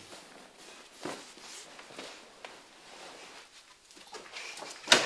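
Hurried footsteps and movement in a small room, with a few light knocks, then a loud sharp clack at a door near the end.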